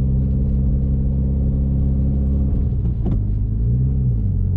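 Mitsubishi Lancer Evolution X's turbocharged four-cylinder engine idling steadily, still warming up after a cold start. A faint click comes about three seconds in, and near the end the engine note rises briefly, then settles at a slightly lower pitch.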